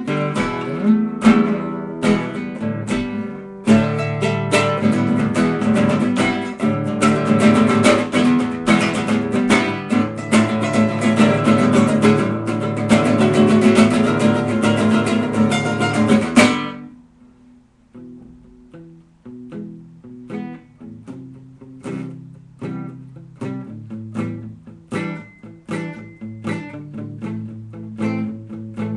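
Acoustic guitar strummed in loud, dense chords, which drop off suddenly a little past halfway into quieter, sparser picked notes.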